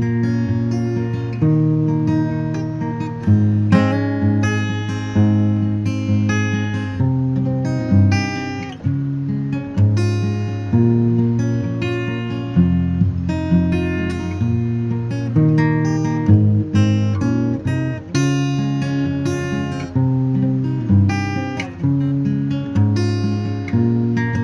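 Background music: acoustic guitar, plucked and strummed, playing continuously.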